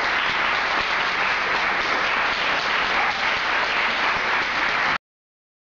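Audience applauding steadily, a dense even clapping that cuts off abruptly about five seconds in.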